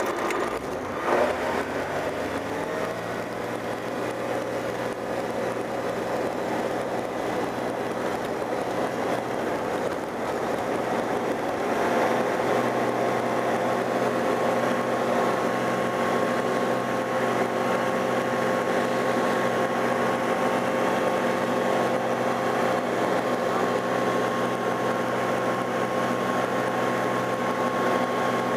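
Tecnam P92 ultralight's engine and propeller heard from inside the cabin during takeoff: the engine rises in pitch to full power in the first couple of seconds, then runs steadily through the ground roll and climb-out, a little louder about twelve seconds in.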